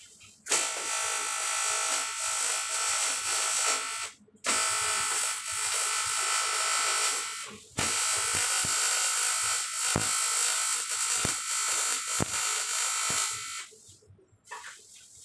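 Welding arc buzzing steadily while a metal housing is welded. The arc is struck three times, with short breaks about four seconds in and near eight seconds, and it stops about a second and a half before the end.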